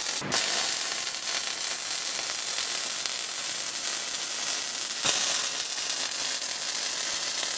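MIG welder arc sizzling steadily as the seams of quarter-inch steel plate are welded solid, with a brief break in the arc just after the start.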